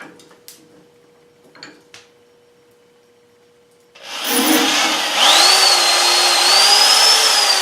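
A few faint handling clicks, then about four seconds in a power drill spins up and runs steadily, boring out the pipe stem's airway; its whine rises as it starts and slides slowly down in pitch near the end.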